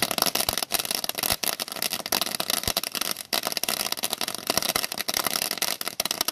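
Conic cone firework fountain burning: a steady rushing hiss of spraying sparks, thick with rapid crackling pops.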